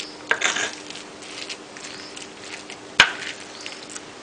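Pestle working a moist mix of grated coconut, spice paste and beef in a stone mortar (cobek), stirring it until evenly blended: soft scraping and squishing, with one sharp knock of pestle on mortar about three seconds in.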